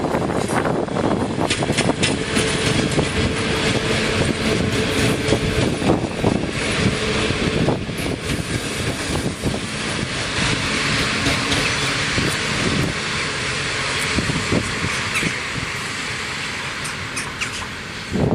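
Passenger train of double-deck coaches hauled by two electric locomotives running past close by: steady rumble of wheels on the track with many clicks and clacks over the rail joints, and a steady hum in the first half. The noise eases a little toward the end as the train draws away.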